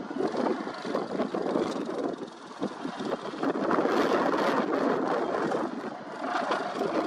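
Excavator-mounted vibratory hammer working a steel sheet pile over the excavator's diesel engine: a dense, steady mechanical rattle with occasional metallic clanks. It dips briefly about two seconds in and grows louder again from about three and a half seconds in.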